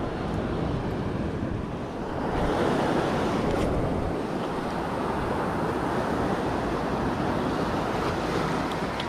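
Sea waves breaking and washing over a rocky shore, with wind on the microphone; the surf grows louder a little over two seconds in.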